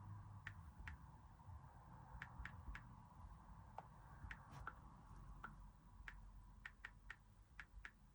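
Faint, irregular light clicks and ticks, about fifteen of them, over a low steady hum.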